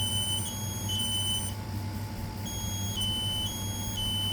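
Smoke alarms in test mode sounding the three-beep temporal pattern, two of them at slightly different pitches and out of step, so their beeps alternate in an unbroken two-tone run of about three seconds. After a pause of about a second the run starts again, over a low steady hum.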